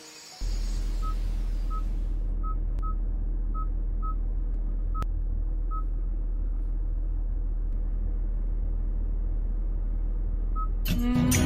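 Kia Mohave's engine idling, heard as a steady low rumble inside the cabin, with short beeps from the navigation touchscreen as keys are pressed, about nine in all at an uneven pace.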